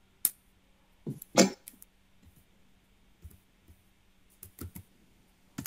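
A few sparse light clicks and taps from computer handwriting input, with a louder short knock about a second and a half in, over a faint steady hum.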